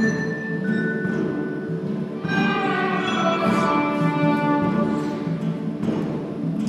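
School instrumental ensemble of violins and guitars playing a classical Christmas piece, with a steady rhythmic accompaniment. About two seconds in, a run of high ringing notes enters and fades out a few seconds later.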